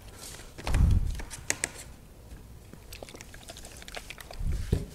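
Thin wooden strips being handled on a workbench: a few light clicks and knocks as they are shifted and pressed down onto a damp cloth, with a couple of soft thumps about a second in and near the end.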